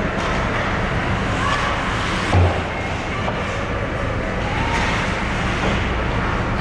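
Ice hockey rink ambience: a steady wash of crowd chatter and rink noise, with a single dull thud about two and a half seconds in.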